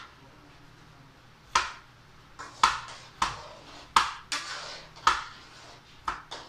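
A knife chopping sweet potatoes on a cutting board: sharp, separate chops with a brief ring, about one a second at an uneven pace, beginning a second or two in.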